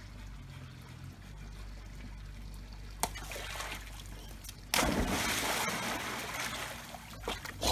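A ball smacks into a swimming pool about three seconds in. About a second and a half later a Labrador retriever leaps in with a big splash, and the water keeps splashing as she swims.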